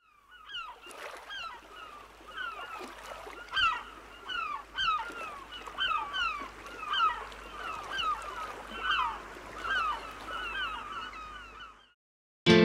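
Birds calling over and over, a run of short, downward-sliding calls, one every half second to a second, fading out near the end.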